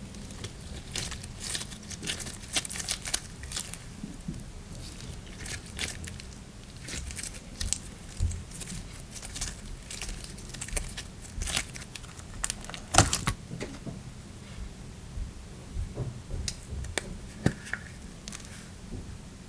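Slime being played with by hand: an irregular stream of small sticky clicks, pops and crackles. One pop about 13 seconds in is the loudest.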